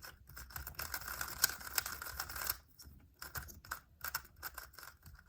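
Megaminx puzzle being turned quickly: rapid plastic clicking of its faces, with a short break a little past halfway before the turning resumes.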